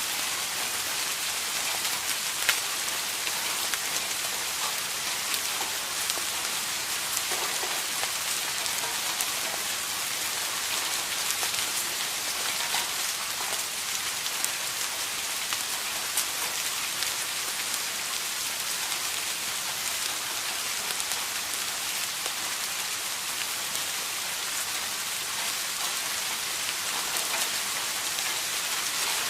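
Steady rain falling, an even hiss with scattered individual drop impacts standing out.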